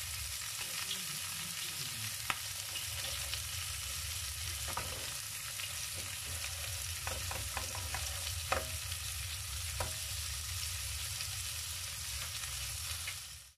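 Ground-pork hamburger patties sizzling steadily in a frying pan, with a few sharp clicks of a plastic spatula against the pan as the patties are turned and moved. The sound stops abruptly at the very end.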